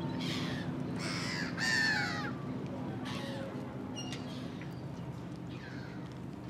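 Harsh bird calls, several in quick succession in the first two seconds, the loudest falling in pitch, then fainter calls later, over a steady low hum.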